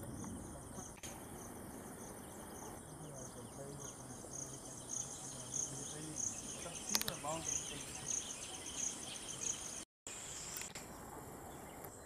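Insects chirping in the orchard: a steady high-pitched drone with a regular pulsing chirp repeating above it. The sound drops out for a moment near the end.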